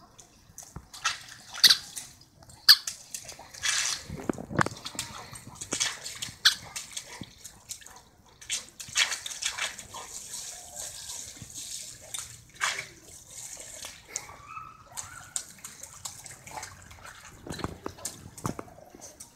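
Water splashing and spraying from a running garden hose as an Irish setter bites and mouths at its end, a string of sharp splashes with a steady spray hiss for a few seconds about halfway through.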